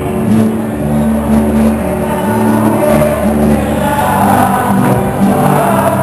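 Live band music with acoustic and electric guitars playing steadily.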